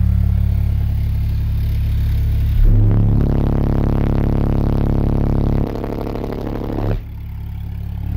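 Six Soundstream XXX 15-inch subwoofers, driven by a Soundstream XXX 15000D amplifier at about 13,000 watts, playing a 35 Hz test tone inside the vehicle's cabin as a steady, very loud low drone. It turns harsher between about three and seven seconds in, dips just after seven seconds, and swells again near the end. This is a bass 'burp' measured at about 158.7 dB on the SPL meter.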